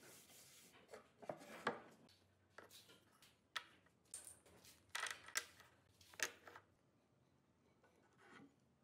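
Faint handling of wood on a wooden workbench: a hand brushing across boards, then a scatter of light clicks and knocks as small cut wooden pieces are moved and set down.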